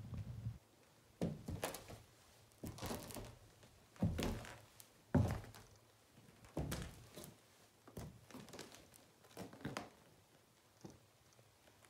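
Footsteps of black leather stiletto-heeled ankle boots on a dusty, gritty floor, a step about every second, some coming in quick pairs.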